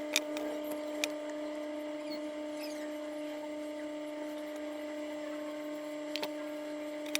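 Steady electrical hum, with four light clicks: two in the first second and two near the end.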